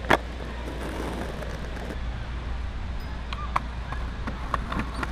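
Skateboard landing on a stone plaza with one sharp clack just after the start, followed by a steady hiss and a few light clicks of the board on stone.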